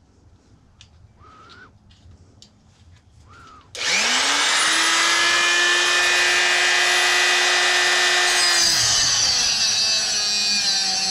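Small cut-off tool starting up about four seconds in, its whine rising quickly to a steady high pitch. Shortly before the end the pitch drops and the sound turns rough as the cut-off wheel bites into the magnetron's metal.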